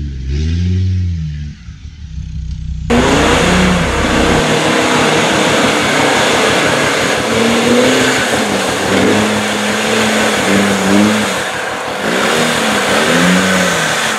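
Land Rover off-roader's engine revving up and down, its pitch rising and falling again and again. About three seconds in, the sound cuts abruptly to a louder take, where the revving engine runs under a heavy rushing noise.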